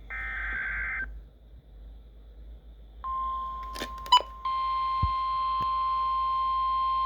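NOAA Weather Radio emergency alert: the last warbling burst of the SAME data header ends about a second in, then after a moment of radio hiss the steady 1050 Hz weather radio alert tone comes on and holds, with a sharp click of static shortly after it starts. The sequence signals an incoming severe weather warning.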